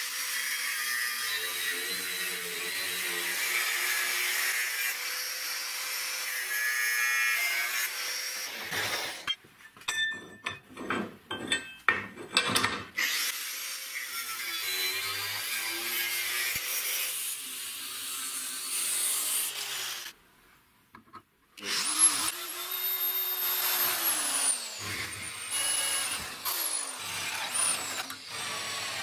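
Angle grinder with a cutting disc cutting steel angle iron, running steadily with a choppy stop-start stretch partway through. After a brief pause near the two-thirds mark, a power drill runs, boring a hole through the steel, its motor pitch rising as it spins up and falling again.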